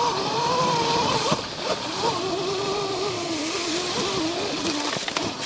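Sur-Ron electric dirt bike's motor and drive whining, its pitch wavering up and down with the throttle, over the rumble of tyres on leaves and dirt. A couple of short knocks about a second and a half in.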